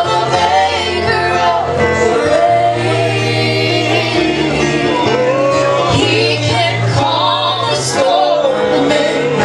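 Live gospel singing with instrumental accompaniment: voices holding long notes and sliding between them over a steady bass line.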